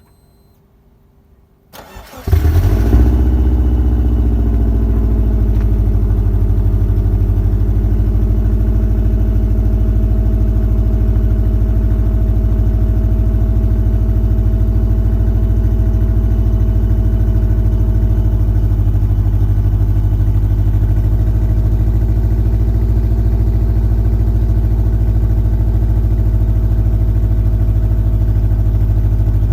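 Subaru Forester SG5 turbo's flat-four boxer engine cranking and starting about two seconds in, through the stock exhaust. Its speed settles down over the next couple of seconds, then it idles steadily.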